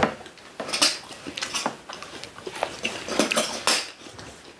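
Chopsticks and tableware clicking and knocking against plates and delivery containers while eating, a sharp click at the start and scattered lighter clicks after.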